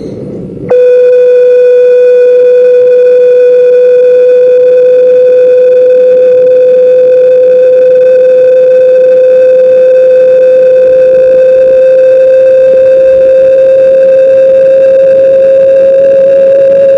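Home theatre speaker giving out a loud, continuous whistle: one steady tone that jumps louder under a second in and creeps slightly higher in pitch near the end. This is the 'train whistle' amplifier fault.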